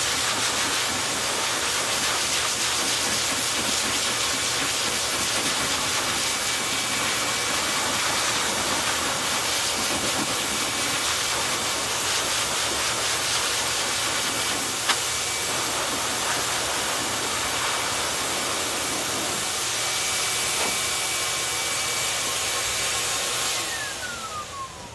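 High-velocity dog dryer blowing a steady rush of air with a faint high whine, blasting out a thick shedding dog coat. About 23 seconds in it is switched off and the motor winds down with a falling whine.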